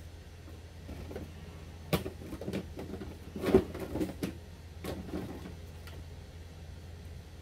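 HP Officejet Pro 8630 inkjet printer working through a printhead cleaning cycle: a run of irregular mechanical clicks and knocks, the loudest about three and a half seconds in, over a steady low hum.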